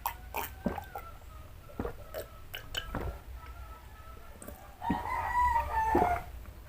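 A rooster crowing, one long call about five seconds in, over the sharp clicks and smacks of someone chewing food.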